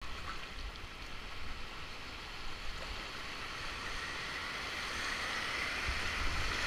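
River rapids rushing, growing steadily louder as the kayak closes in on the whitewater, over a low rumble.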